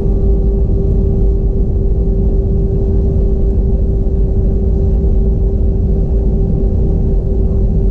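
Cabin noise inside an Airbus A320-232: its IAE V2500 turbofan engines and the airflow make a steady, loud rumble with a constant mid-pitched hum over it.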